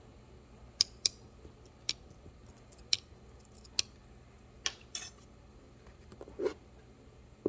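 Small utensils clicking and tapping: about nine short, sharp clicks at uneven intervals, roughly one a second, over faint room noise.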